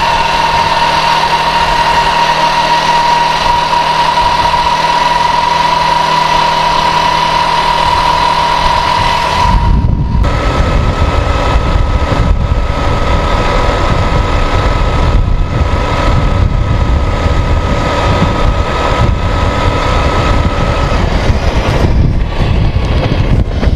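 K-Lion Santa 200 quad bike's engine running steadily at cruising speed with a high whine. About nine seconds in the sound changes abruptly: heavy wind rumble on the microphone comes in and the engine note sits a little higher.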